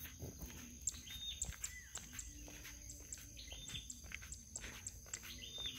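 Birds calling: short chirps that rise and fall, one every second or two, over a faint steady high-pitched tone.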